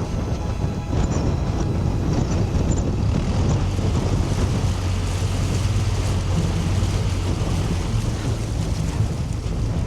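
Narrowboat's diesel engine running steadily with a low hum, the boat being reversed, with wind noise on the microphone.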